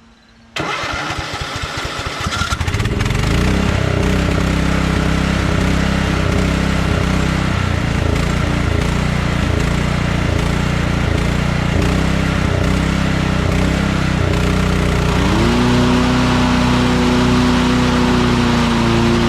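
Kohler Command engine on a Craftsman LT1000 lawn tractor cranked by its electric starter. It catches after about two seconds and settles into a steady run. About fifteen seconds in it speeds up and holds a higher, steady speed.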